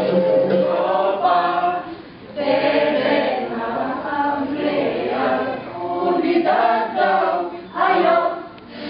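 A group of voices singing together without instruments, in chant-like phrases broken by short pauses about two seconds in and again near the end.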